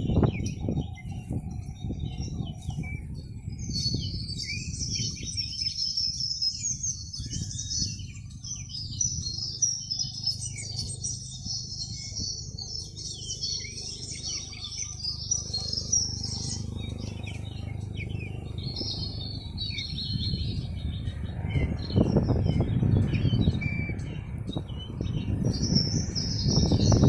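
Many small birds chirping and twittering continually, over a low rumbling noise that grows louder about three-quarters of the way through.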